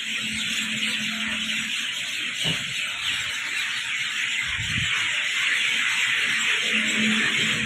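Steady high-pitched hiss of outdoor evening ambience, with a faint low hum that comes and goes and a brief low rumble about halfway through.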